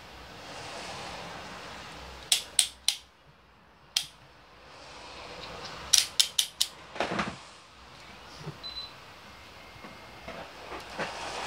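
Large folding knife being opened by hand: sharp clicks from the blade's pivot mechanism, three about two seconds in, one more at four seconds, then four quick clicks around six seconds as the blade swings out, followed by a short scraping rustle of handling.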